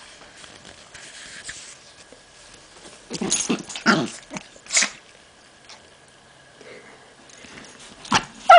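A pit bull and a chihuahua play-fighting: short, irregular bursts of dog noise, several in a row about three to five seconds in and two sharp ones near the end.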